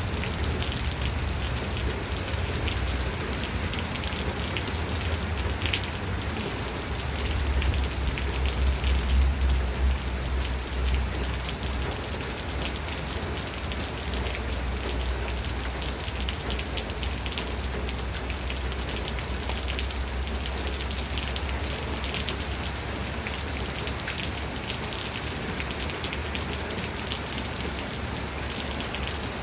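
Steady rain falling, a dense patter of many small drop impacts. A low rumble swells for a few seconds about a third of the way in.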